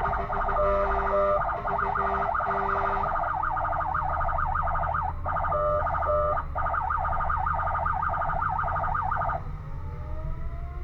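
Fire engine's electronic siren sounding in a fast rising-and-falling wail while the truck runs on a call, with a few short steady horn blasts layered over it and the engine rumbling underneath. The siren cuts off about nine seconds in.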